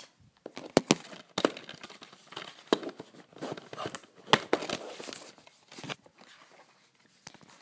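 Plastic DVD case being opened by hand: several sharp clicks with crinkly plastic rustling between them, fading off near the end.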